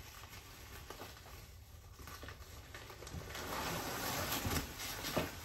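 Bubble wrap and cardboard rustling as a wrapped box is slid out of a shipping box: light handling noises at first, then louder crinkling from about three seconds in.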